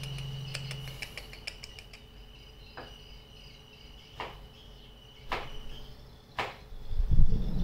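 A steady high insect-like chirring with a quick run of ticks in the first two seconds, then single sharp clicks about once a second. Near the end a loud low rumble takes over.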